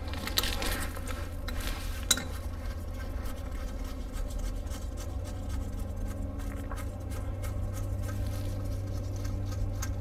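A ratchet and gloved hands working the bolt of an engine's front idler pulley: a couple of sharp metal clicks in the first two seconds, then light scraping and handling, over a steady low hum.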